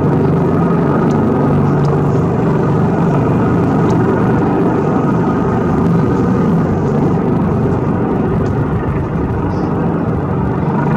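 Coastguard search-and-rescue helicopter hovering, its rotors and turbines making a loud, steady rumble.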